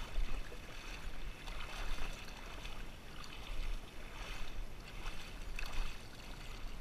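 Water splashing as a hooked fish thrashes at the surface close by, in a few brief louder splashes over a low steady rumble on the microphone.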